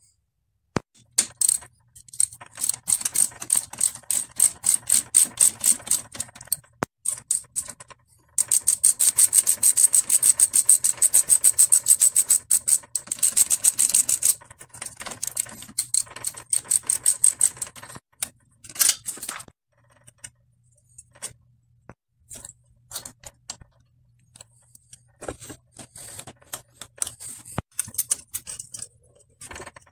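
Long runs of quick metallic clicking, about eight clicks a second, from a hand tool working a small bolt on a bicycle frame's top-tube cable fitting. After the middle the runs stop, leaving scattered clinks and taps of tools and parts.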